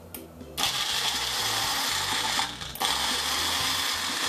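Magic Bullet blender motor running in pulses as the cup is pressed down on the base. It starts about half a second in, stops briefly near the middle, then runs on. The mix of fruit, milk and yogurt is staying chunky, with the yogurt stuck at the top of the cup.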